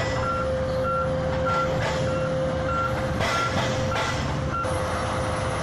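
Reversing alarm on a BelAZ 75601 mining haul truck, beeping evenly under twice a second over the truck's steady engine drone and a constant whine. The beeping stops about four and a half seconds in.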